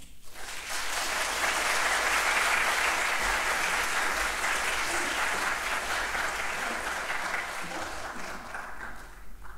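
Audience applauding. The applause begins at once, swells over the first two seconds, then slowly thins out near the end.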